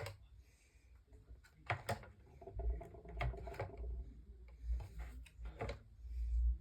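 Handling noise from cleaning a desk fan's motor hub: sharp clicks and scrapes as a screwdriver wrapped in a wipe is worked around inside the dusty hub, with low bumps and thuds of the fan being handled.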